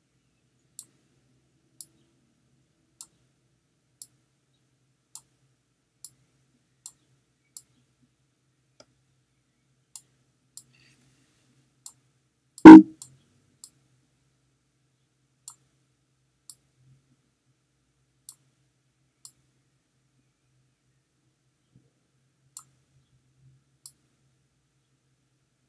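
Computer mouse clicking, faint sharp clicks about once a second, with one loud thump about halfway through.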